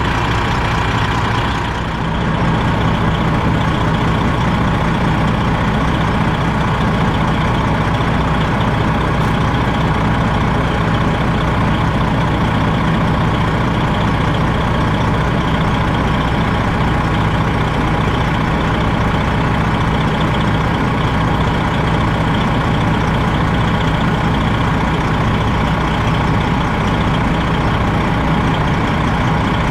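Freightliner Classic XL semi truck's diesel engine idling steadily.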